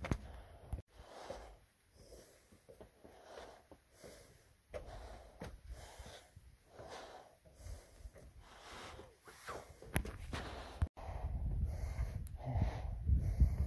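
Heavy, rhythmic panting of a runner climbing steep metal stairs, about one breath a second. About eleven seconds in, a louder low rumble of wind on the microphone takes over.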